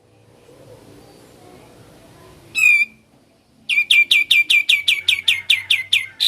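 A kapas tembak songbird calling. One note comes about two and a half seconds in, then, after a second's pause, a fast run of about fourteen sharp, identical down-slurred notes at five or six a second. This is the rapid repeated 'ngebren' style of call.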